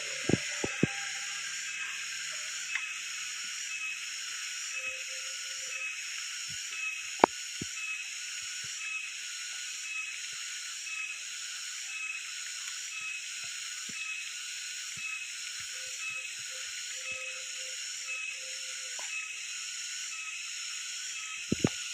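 Cicadas (tonggeret) calling in a steady, high chorus that pulses in an even rhythm about once a second, with a few sharp clicks, the loudest about seven seconds in and two more near the end.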